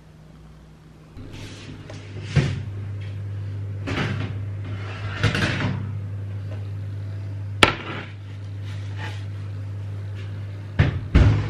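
Kitchen handling sounds over a steady low hum: several knocks and clatters, the sharpest a single click a little past halfway and a quick pair of knocks near the end, as a baking tray of ladyfingers is handled at the oven.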